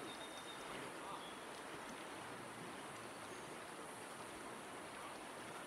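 Steady rush of a shallow mountain river flowing over stones, an even noise with no breaks.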